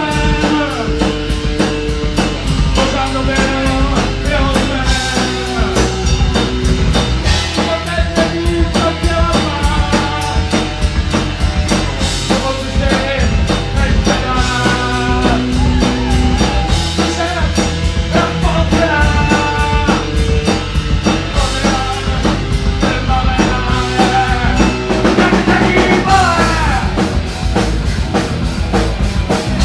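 Rock band music: a drum kit keeps a steady beat under bass and sustained melodic lines.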